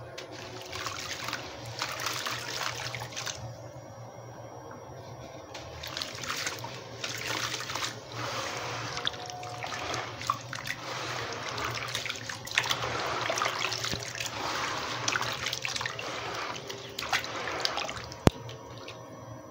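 Hands crumbling and squeezing gritty wet cement in a bucket of water, with trickling, splashing and squelching in bursts and a quieter pause a few seconds in. One sharp click near the end.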